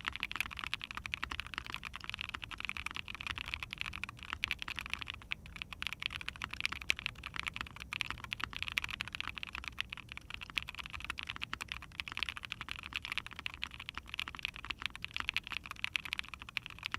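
Continuous fast typing on a mechanical keyboard: Ashkeebs Alexandrite linear switches lubed with 205g0, in an Ai03 Vega with a POM plate and GMK keycaps. It is a rapid stream of keystrokes, very quiet, albeit deep.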